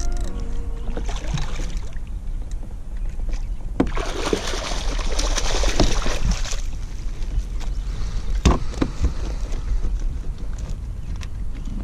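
Speckled trout thrashing in a landing net beside a kayak, a couple of seconds of splashing near the middle, with a few sharp knocks of gear against the plastic hull, over a steady low rumble.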